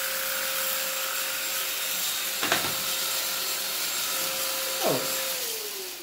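Silvercrest SHAZ 22.2 C3 cordless stick vacuum running with its floor-head brush roll spinning free in the air, a steady whine over the suction noise, with two brief knocks. Near the end the whine falls in pitch and the noise dies away as the motor is switched off and spins down.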